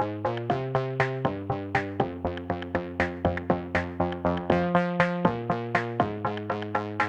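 Background music: electronic synthesizer tune with sustained chords and a steady, quick beat of about four notes a second.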